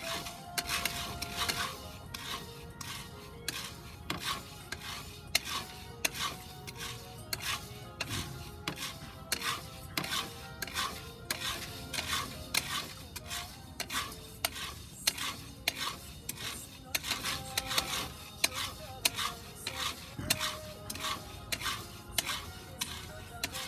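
Wooden paddle stirring coffee beans in a round cast-iron pot during pan roasting, early in the roast while the beans are still pale: a rhythmic scraping of beans against the iron, about two strokes a second.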